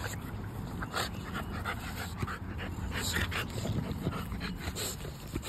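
Dog panting, with a few short clicks and rustles.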